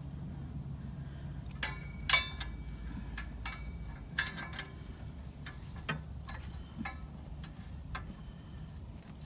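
Irregular metallic clicks and clinks of hand tools against exhaust parts, the loudest about two seconds in with a brief metallic ring, over a low steady hum.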